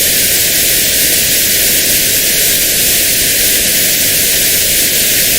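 Notched white noise played as a tinnitus-matching test signal: a steady, loud hiss with a band around 1,000 hertz cut out of it.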